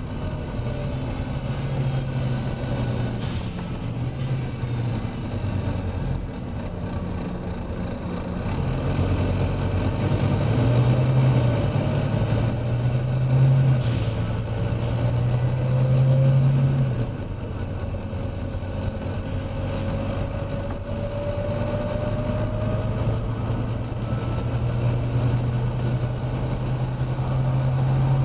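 Volvo B9TL double-decker bus's six-cylinder diesel engine under hard load at road speed, the thrash swelling in the middle and dropping off sharply about two-thirds of the way through. Short hisses of air from the bus's air system about three seconds in and again midway.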